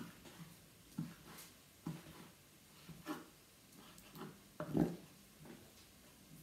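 Kitchen knife slicing squid on a wooden cutting board, the blade knocking the board with a soft thud about once a second, the loudest near the end.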